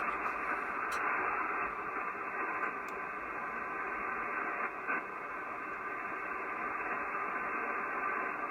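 Steady, dull hiss of static from an amateur radio receiver tuned to the 40-metre band, with heavy band noise and no signal.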